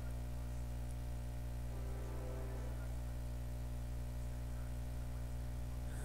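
Steady low electrical hum with a faint buzz, even in level throughout.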